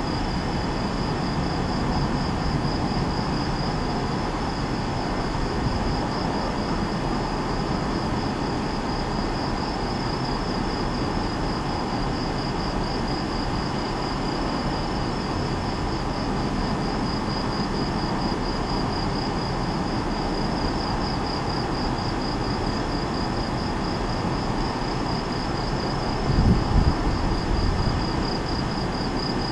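Crickets chirping steadily in a fast, even pulse over a constant low rumbling background, with a brief louder low rumble near the end.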